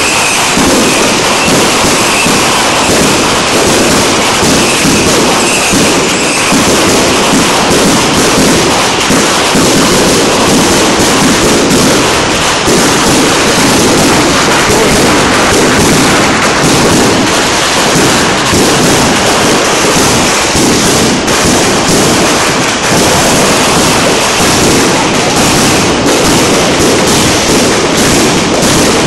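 Dense, unbroken barrage of fireworks: aerial bursts and a ground fountain crackling and banging continuously, loud throughout.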